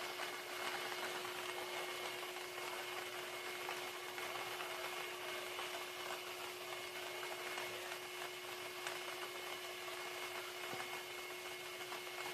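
Air-mixed lottery ball drawing machine running: its blower gives a steady hum and hiss while the plastic balls tick and clatter against the clear chambers. Right at the end the blower shuts off and its hum slides down in pitch as it winds down.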